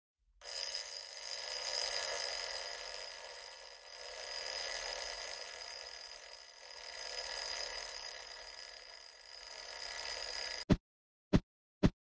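Twin-bell alarm clock ringing continuously, cutting off suddenly near the end; three short thuds follow.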